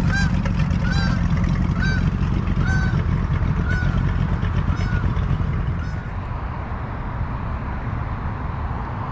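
A goose honking repeatedly, about once a second, the calls growing fainter and stopping about six seconds in, over a steady low rumble.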